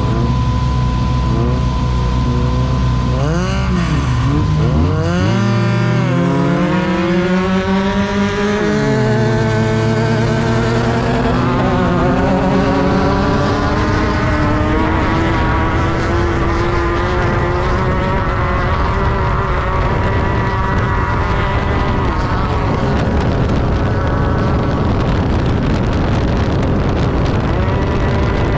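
Class 10 desert race buggy engine under hard driving. The revs rise and drop sharply a few times in the first few seconds, then climb steadily for about ten seconds and hold high to the end, over constant wind and chassis noise.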